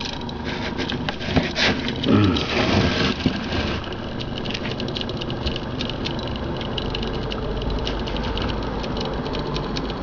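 Homemade magnet motor running: the paper-clip reed switch contacts chatter in a fast, steady patter of tiny clicks as the magnet rotor spins. A few louder knocks and rustles come between about one and a half and three and a half seconds in, and a low hum comes up about halfway.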